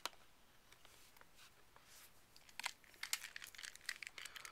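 Crinkling and clicking of a puzzle-cube box with a clear plastic window being handled: a single click at the start, then from about halfway a run of short crackles.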